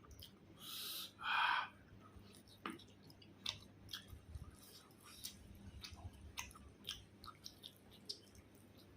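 A person chewing food close to the microphone: a run of short, wet clicks and smacks, with two louder, longer noisy sounds about a second in.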